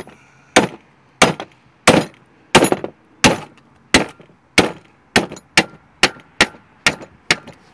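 Ball peen hammer tapping on a new brake pad to snap its retaining clip into a rear disc brake caliper: about fifteen sharp, separate taps, roughly every half second at first and coming a little quicker near the end.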